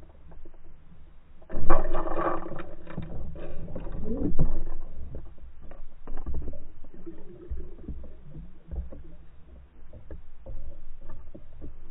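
Slowed-down underwater sound of a pike striking a lure: a sudden loud surge of deep, muffled water churning about a second and a half in, with a falling swoosh a couple of seconds later, then lower uneven churning and knocks as the fish thrashes with the lure.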